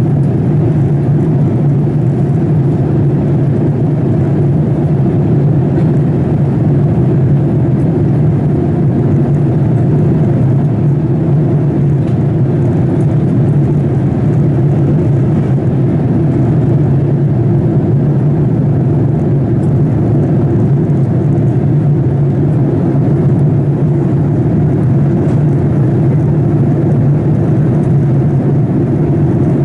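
Steady, deep drone of a Boeing 787-8 in flight, engine and airflow noise as heard inside the passenger cabin at a window seat.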